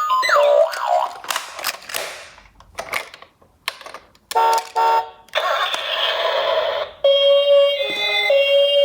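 A quick string of electronic siren- and alarm-like sounds: falling whistle-like glides, a run of sharp clicks, two short beeps, a burst of noise, then a steady alarm tone that cuts off suddenly.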